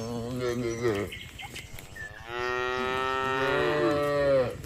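Cow mooing twice: a short moo, then a longer, louder one starting about two seconds in that drops in pitch as it ends.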